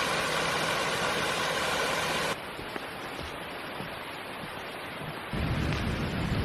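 Steady rushing water of a river or waterfall. The sound changes abruptly twice, becoming quieter about two seconds in and then gaining a heavy low rumble near the end.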